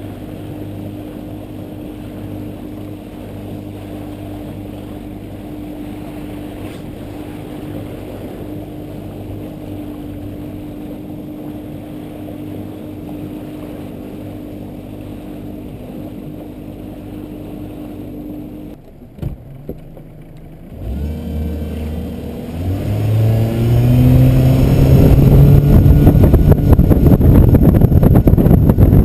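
A boat's outboard motor runs steadily at low speed with an even hum. About two-thirds in there is a short break, then the motor throttles up with a rising pitch. It settles into loud running at speed, with water and wind rushing past.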